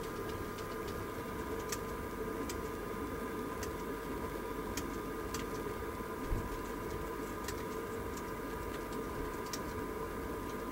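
Scattered, unhurried clicks of a computer keyboard and mouse over a steady background hum with a faint whine in it. A single low thump comes about six seconds in.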